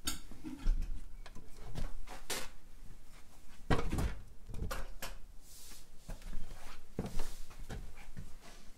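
Irregular wooden knocks, clunks and scrapes as a large stretched canvas is handled and shifted on a studio easel, the heaviest knocks about four seconds in and just after seven seconds.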